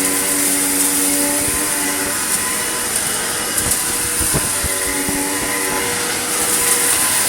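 Vacuum cleaner running steadily on a mess of dust and grit: a motor whine over a loud rushing hiss, with scattered ticks and crackles as grit is sucked up.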